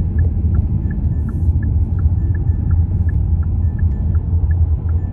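Steady low rumble of a car driving, heard inside the cabin, with the faint, even ticking of the turn signal about two to three times a second.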